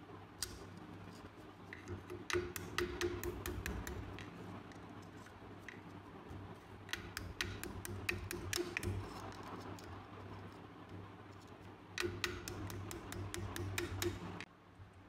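Small hammer tapping a pin punch to drive a pin out of a steel pistol frame clamped in a vise: quick, light metallic taps, several a second, in three runs starting about two, seven and twelve seconds in.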